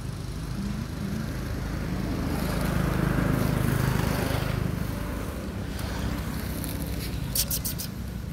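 Engine of a passing motor vehicle, a low hum that grows louder to a peak about halfway through and then fades. A brief run of sharp crackles near the end.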